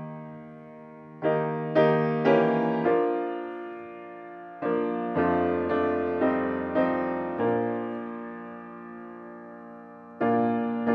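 Solo piano playing slow chords, each struck and left to ring and fade, with gaps of up to about three seconds between some of them.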